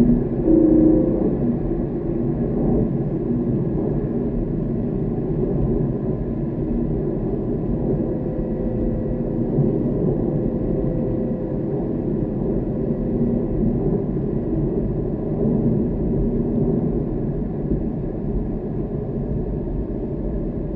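Car engine and tyre noise heard from inside the cabin: a steady rumble while cruising along a straight, with no gear changes or sharp events.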